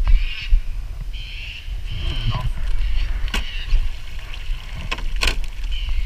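Clunks, knocks and clicks of a bow-mount electric trolling motor being lifted out of the water and stowed on its mount. A steady low rumble of wind on the microphone runs underneath.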